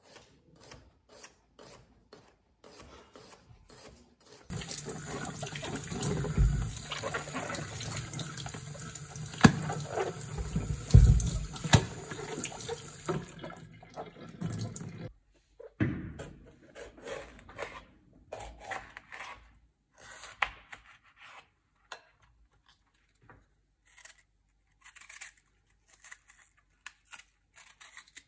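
Kitchen tap running into a sink for about ten seconds, with something being rubbed and handled under the stream, then shut off suddenly. Before and after, scattered light knocks and clicks.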